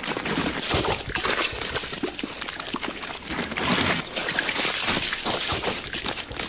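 A dense, noisy run of crashing and clattering impacts, mixed with splashing.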